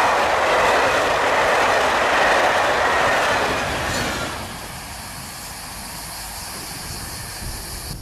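Passenger train of SNCF coaches running past close by, its wheels rolling on the rails; the noise falls away about four seconds in as the last coach goes by, leaving a much quieter hiss.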